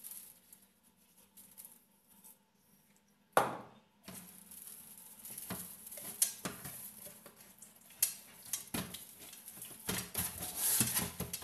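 Raw whole chicken being turned and rubbed by hand in a pan: one sharp knock about three and a half seconds in, then steady sliding and scraping of the bird against the pan with scattered knocks, louder near the end.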